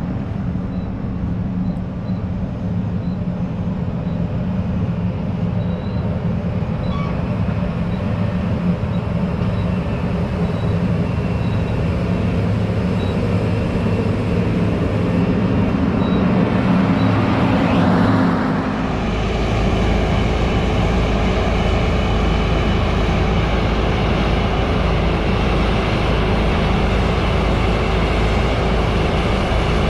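Heavy diesel farm machinery running steadily. A rising sweep comes about two-thirds of the way in, and then the sound changes suddenly to a deeper, fuller rumble.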